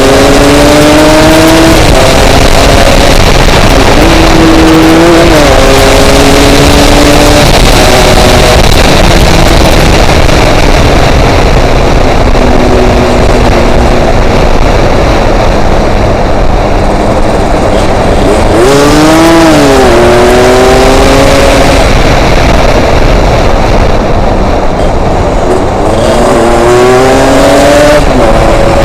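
Yamaha RX-King's single-cylinder two-stroke engine revving up and shifting through the gears while riding, its pitch rising and dropping back several times, with sharp climbs about two-thirds of the way in and near the end. Heavy wind roar on the microphone runs under it.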